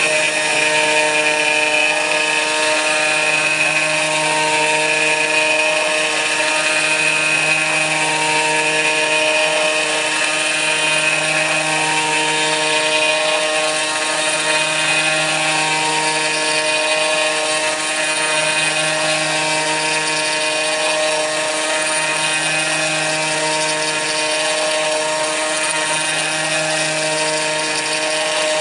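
Kress FME-1050 router spindle on a CNC milling machine running steadily while milling aluminium. A high whine holds steady over it, and a lower hum comes and goes about every two seconds.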